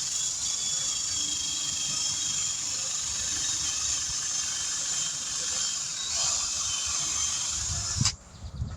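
High-speed rotary buffing tool running steadily with a hissing whine as it buffs the tire's rubber bead, then cutting off suddenly near the end.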